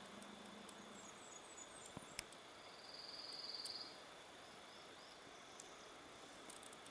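Near silence: faint outdoor background with a few faint high chirps, a single light click about two seconds in, and one short high trill about three seconds in.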